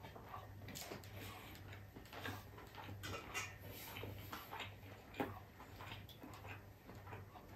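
Faint eating sounds: chewing and lip smacking with small wet clicks, and one sharper click about five seconds in, over a low steady hum.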